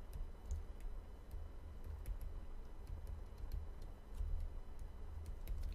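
Faint, irregular light clicks and taps of a stylus writing on a pen tablet, over a low steady room hum.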